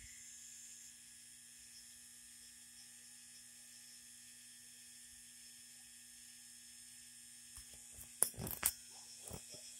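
Faint steady electrical hum. Near the end come a few sharp knocks and rubbing sounds from the phone being handled.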